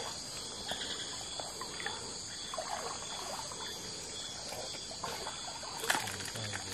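Steady night chorus of crickets and other insects, with small trickling and dribbling water sounds from the stream and a sharp click about six seconds in.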